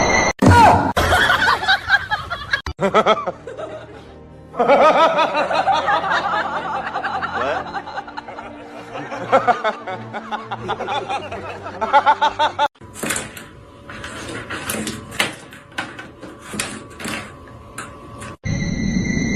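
Music, with bursts of laughter, in a string of short clips cut abruptly one after another. In the last part a run of sharp knocks or clicks is heard.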